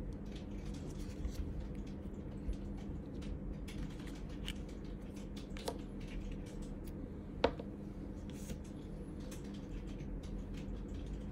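Hands handling a small plastic wireless-microphone charging case and its clip-on transmitters: scattered small clicks and rustles, with a sharp click about seven seconds in, the loudest. A steady low hum runs underneath.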